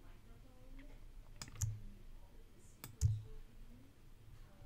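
Computer mouse and keyboard clicks: two pairs of sharp clicks, about a second and a half in and again about three seconds in.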